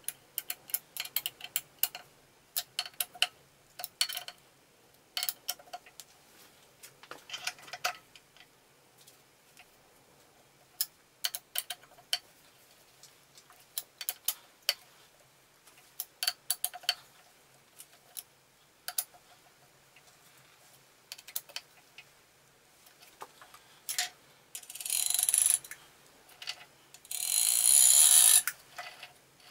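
Light metallic clicks and clinks of a hex key working the cap head screws while the bull gear is fitted into the Atlas 7B shaper's cast-iron main casting. Near the end come two longer metal scraping sounds, about a second each, as a part is slid against the casting.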